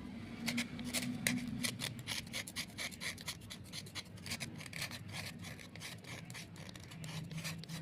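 Crisp, rapid scraping and rubbing on coated slate pencils, irregular strokes at about three or four a second, over a low steady hum.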